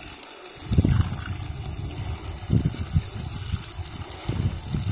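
A pressure washer's water jet sprays onto a skylight's glass and the surrounding asphalt shingles for a rinse: a steady hiss over low, uneven rumbling.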